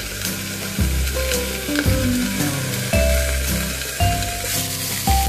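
Chicken pieces sizzling and crackling as they fry in a lidded pan over a gas flame. Background music runs underneath, its bass note changing about once a second.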